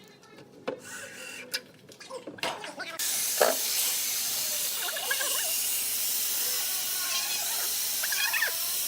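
A steady hiss that starts abruptly about three seconds in, after a few faint knocks, with brief voices over it.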